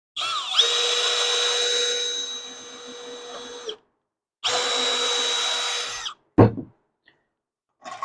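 Cordless drill spinning up and running for about three and a half seconds, then a second shorter run of about a second and a half, followed by a single thump.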